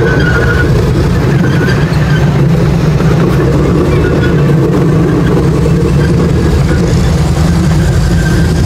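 Miniature passenger train heard from on board: a loud, steady rumble of the wheels on the track and the locomotive running, with a high wheel squeal that stops within the first second.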